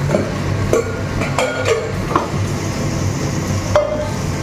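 Stainless steel kitchen utensils clinking and knocking against each other, several separate metal clinks, the last one, near the end, ringing briefly with a clear tone, over a steady low hum.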